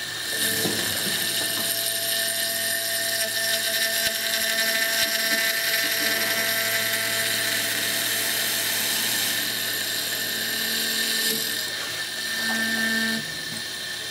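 CNC mill spindle driving a small cutter through a Stone Hopea burl wood ring held on the rotary fourth axis: a steady high whine with several held tones and a dense hiss of cutting. The hiss drops away about a second before the end as the toolpath finishes.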